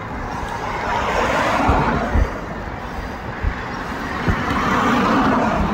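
Road traffic on a multi-lane street: the tyre and engine noise of passing cars swells about a second in and again near the end. A few short low thumps sound through it.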